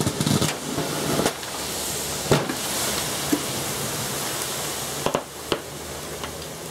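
Charges going off inside a CRT television in a vented discharge: a steady hissing rush with one sharp bang about two seconds in, then scattered pops and crackles near the end as the set bursts into flame.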